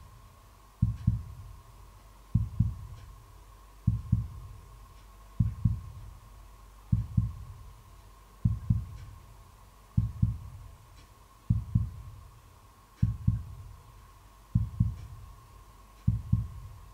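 Heartbeat sound effect: a slow, evenly spaced double thump, lub-dub, about every one and a half seconds, with a faint steady tone underneath.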